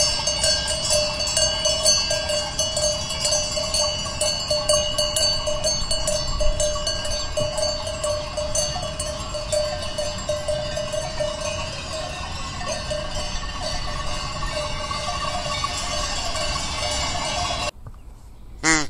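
Bells clanking and ringing steadily, with many overlapping tones. They cut off suddenly near the end, and a greylag goose honks once.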